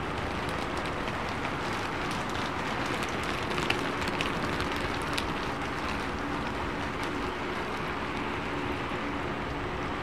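Steady rain falling, a dense even hiss with many individual drops ticking and a few sharper drips around the middle, over a faint steady hum.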